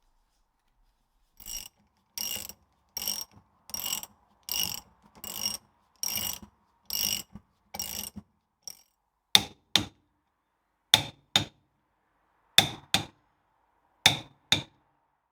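Ratchet wrench on the crown wheel bolts of a Land Rover Series 2 differential, swung back and forth about once every three-quarters of a second so each stroke gives a run of pawl clicks. About nine seconds in it changes to four pairs of sharp clicks, about a second and a half apart.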